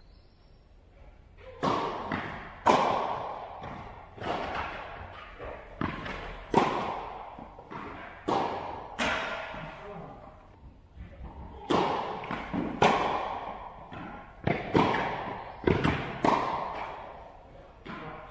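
Tennis ball being struck by rackets and bouncing on a hard indoor court, a sharp hit about every second with uneven loudness. Each hit rings out in a long echo off the hall's metal walls and roof.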